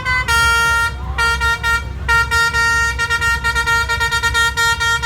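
Bus-mounted basuri telolet horn playing a tune: one longer note, then a rapid run of short, stepped notes, over a steady low rumble.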